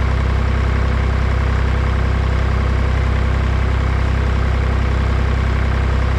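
Engine running at a steady speed, with a strong deep hum and no change in pitch or level.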